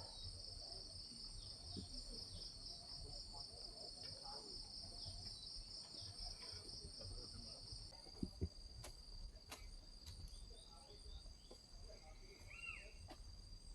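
Faint chorus of insects trilling: a high pulsing drone that changes to a thinner, steady high tone about eight seconds in. A short call rises and falls near the end.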